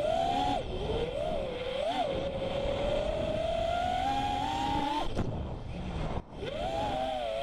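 Brushless motors (2207, 2450 kV) of a 5-inch FPV freestyle quadcopter whining, the pitch swinging up and down with the throttle. About five seconds in the whine cuts off and the sound drops away briefly before the motors spin back up.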